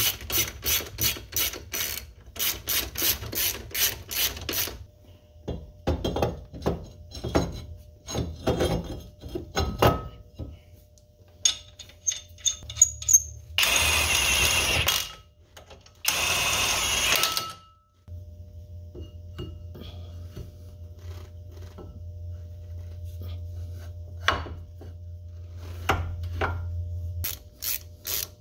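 Hand ratchet wrench clicking rapidly as a suspension nut is run down, followed by scattered metal clanks. About halfway through, two bursts of about a second and a half each from a power tool driving the front hub nut through a long socket extension, then a low steady hum, and rapid ratchet clicking again near the end.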